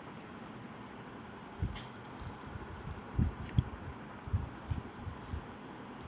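About seven soft, low thumps spread unevenly over a few seconds, with a few faint rustles and clicks, over a steady hiss.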